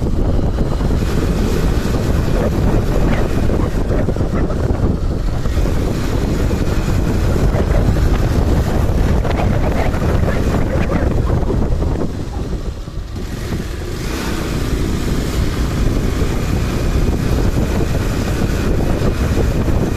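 Wind buffeting the microphone of a camera riding on a moving motorbike, with engine and road noise underneath. It is a steady rush that dips briefly about two-thirds of the way through, then picks up again.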